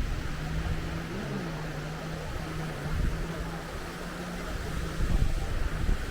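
Sea wash and wind gusting on the microphone, with a steady low drone that fades out about five seconds in.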